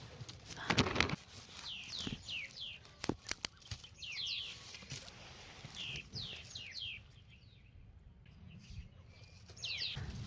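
A bird calling in quick phrases of three or four short, high, downward-sweeping notes, repeated about every two seconds. In the first few seconds there are rustling and a few sharp snaps or knocks close by.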